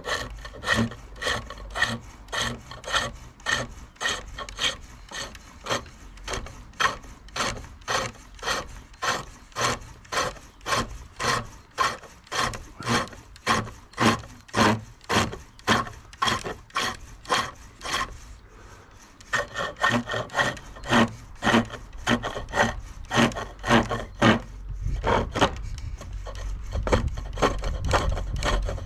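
Spring pole lathe turning a bark-on log spindle: a gouge cuts the wood in even, rhythmic strokes, about two a second. Each cut falls on the treadle's downstroke and is followed by the return spin. The cutting pauses briefly about two thirds of the way through, then resumes.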